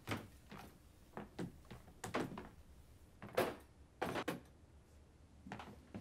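Someone moving about a kitchen handling things: a string of irregular soft knocks, clicks and clunks, the loudest about three and a half seconds in.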